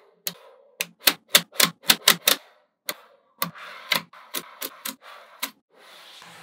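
Small magnetic balls clicking as blocks of them snap onto a magnet-ball panel: a quick run of sharp clicks, a pause, then more clicks with a light rattle, ending in a softer scraping as the panel is handled.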